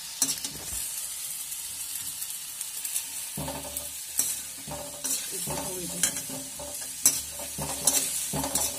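Potato and tomato pieces sizzling in a kadhai as a perforated steel slotted spoon stirs them, with repeated sharp scrapes and knocks of the spoon against the pan.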